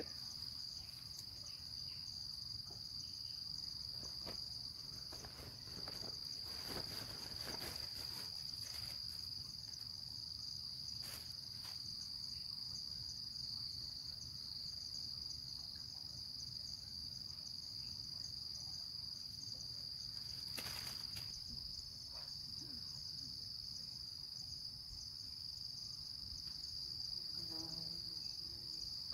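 Steady high-pitched insect chorus, with a few brief rustling knocks, the loudest about twenty seconds in.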